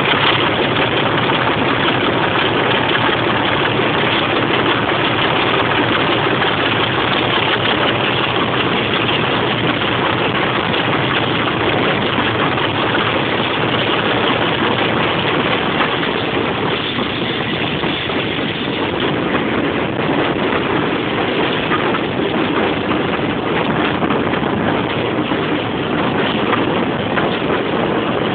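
Class 25 diesel locomotive's Sulzer six-cylinder engine hauling the train, heard through an open carriage window mixed with wind on the microphone and the steady run of the train.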